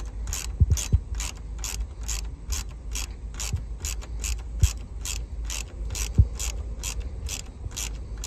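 Hand ratchet wrench with a 10 mm socket clicking in a steady rhythm, about three clicks a second, as a headlight housing bolt is backed out, with a few dull knocks in between.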